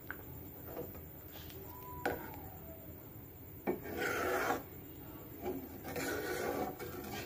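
Metal ladle stirring thick lentil dal in a kadai, scraping and rubbing against the pan in rough rasping strokes, with a sharp knock about two seconds in.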